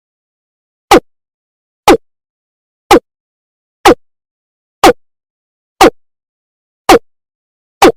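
Looped recording of a rail's call (Indonesian 'mandar' or 'biron'), played as a trapper's lure: a short, loud note that sweeps downward, repeated about once a second with silence between.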